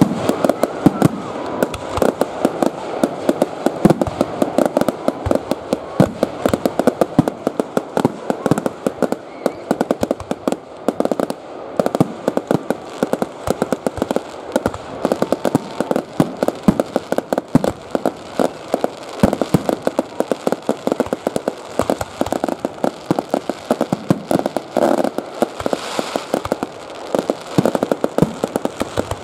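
Aerial firework shells bursting overhead in quick succession: a continuous run of sharp bangs mixed with the dense crackling of glitter stars.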